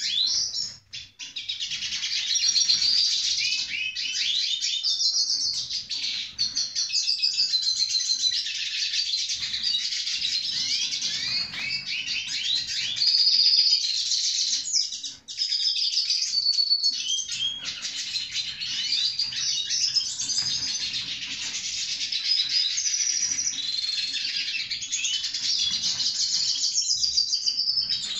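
Caged hooded siskin singing a long, continuous twittering song full of rapid trills and buzzy phrases, breaking off only briefly about a second in and again around the middle.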